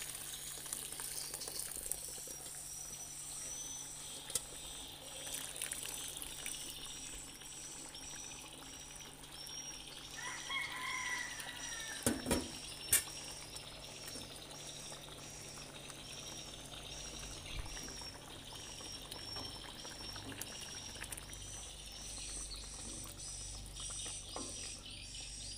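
Coconut milk being poured into a wok of pounded cassava leaves, then the liquid heating in the pan, with two or three sharp knocks about twelve seconds in. A fast, even run of high chirps repeats through most of it.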